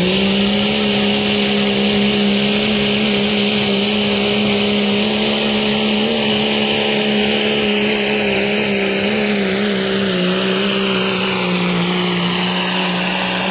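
Diesel pickup truck engine at full throttle, pulling a weighted sled. It holds a loud, steady high-rev pitch after a slight dip right at the start.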